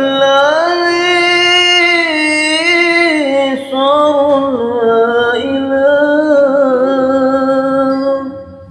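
A man singing a sholawat, an Islamic devotional song, unaccompanied, in long drawn-out melismatic notes that bend and waver. There is a short break about three and a half seconds in, and the voice trails off near the end.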